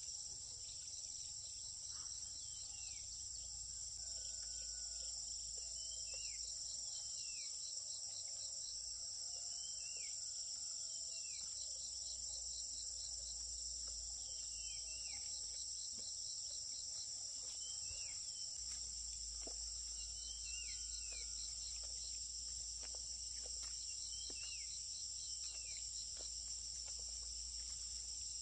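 Steady high-pitched insect chorus in forest, with trains of rapid ticking pulses over it. A short chirping call repeats every second or two.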